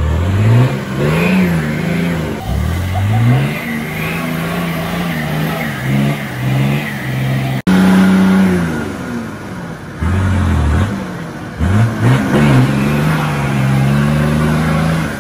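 Nissan Patrol 4WD's engine revving up and down again and again under load as it churns through a deep mud hole, with an abrupt break in the sound about halfway through.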